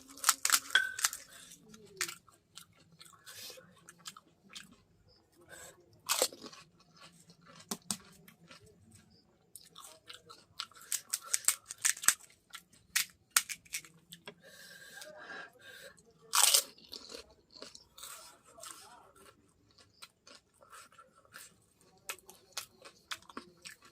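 A person biting into and chewing crisp golgappa (pani puri) shells, with irregular crunches coming in clusters, close to the microphone.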